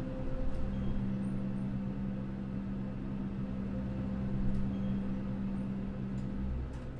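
Low, steady droning hum with a second low tone that comes in about a second in and fades out near the end, and a few faint ticks.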